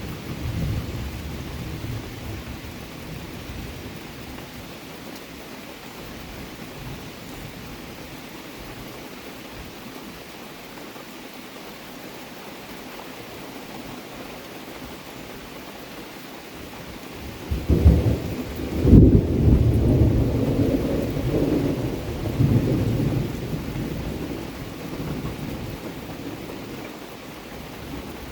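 Steady rain with thunder: a low rumble at the start, then a loud thunderclap about two-thirds of the way through that rolls on for several seconds before fading.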